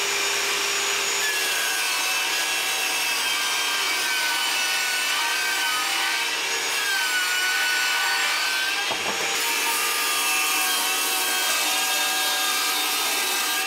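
Table saw running and ripping a sheet of MDF: a steady motor and blade whine whose pitch sags a little in the middle of the cut as the blade takes the load.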